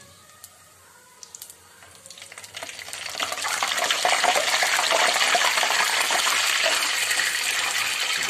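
Whole spices frying in hot oil: a faint sizzle at first that grows, from about three seconds in, into a loud, steady sizzle as a spoon stirs them.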